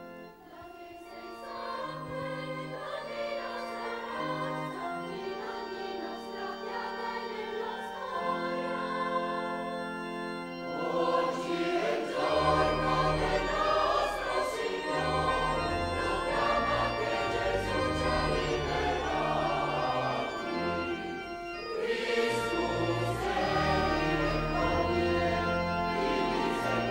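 Church organ and a choir with children's voices performing a hymn. The sound grows fuller, with deep organ bass notes, about eleven seconds in.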